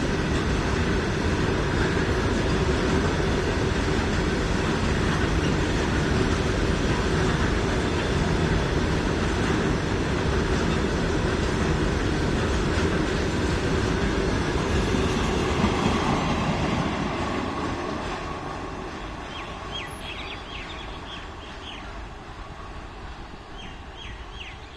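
Goods train wagons rolling past on the rails: a steady rumble and clatter of wheels on the track that dies away over the last several seconds as the train moves off. A few short bird chirps near the end.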